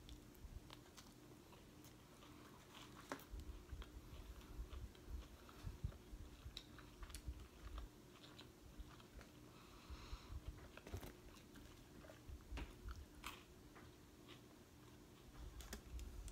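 A person chewing and biting food close to the microphone: faint, irregular clicks and soft low thumps of the jaw and mouth.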